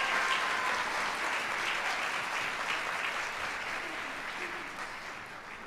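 Audience applauding, the applause fading away gradually toward the end.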